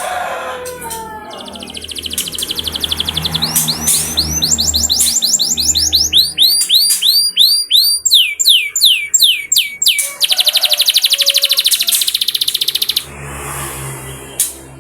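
Domestic canary singing: a fast trill, then a long run of repeated down-slurred whistled notes at about four or five a second, then a very fast buzzing roll that cuts off abruptly near the end.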